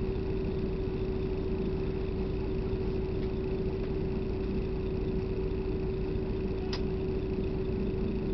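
A steady low rumble with one constant hum running through it, and a single sharp click about two-thirds of the way in.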